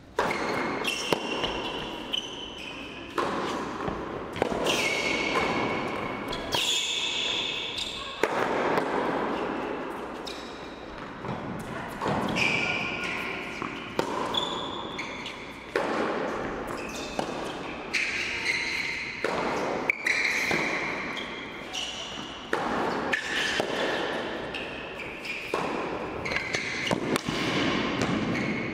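Tennis ball struck by rackets and bouncing on an indoor hard court during a rally, sharp hits every second or few, each echoing in a large indoor tennis hall.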